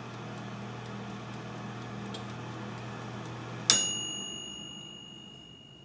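Oster TSSTTVMAF1 countertop air fryer oven's convection fan running with a steady hum on the air fry setting at 450°F. A little over halfway through, the mechanical timer runs out with a click and a single bell ding that rings on and fades, and the fan shuts off.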